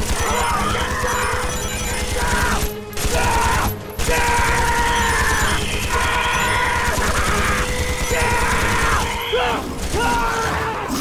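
Sustained rapid machine-gun fire from a belt-fed gun over a film score, breaking off briefly twice, about three and about four seconds in.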